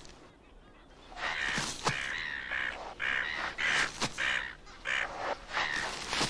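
Birds calling: after a quiet first second, a quick series of about eight short calls, one after another.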